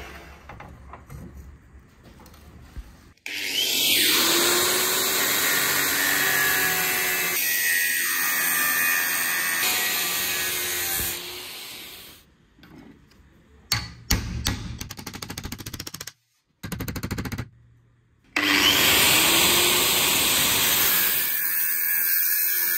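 Angle grinder with a cutting disc running under load, cutting into a forged steel billet. It starts suddenly twice and runs for several seconds each time, with a quick run of rattling clicks in the gap between.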